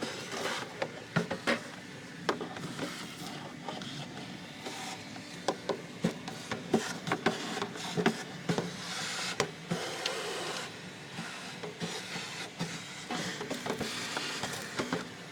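Small vacuum running steadily while cleaning out an electrical compartment, with many sharp clicks and knocks as debris rattles into the nozzle and the nozzle bumps the surfaces.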